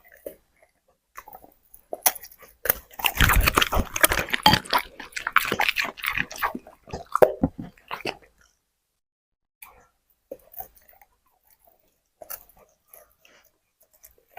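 A dog chewing crunchy food: a dense run of crunches and bites for about six seconds, then only scattered faint chews near the end.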